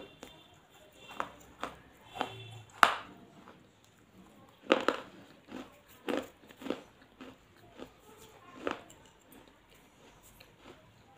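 Close-up eating sounds: a person biting into and chewing a flat, crisp snack, with sharp, irregular crunches. The loudest crunches come about three and five seconds in.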